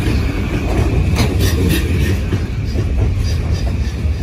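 Blue-and-cream JR Yokosuka/Sobu Rapid Line electric commuter train running past the platform: a steady rumble from the cars and wheels, with a quick run of clicks from the wheels over rail joints about a second in.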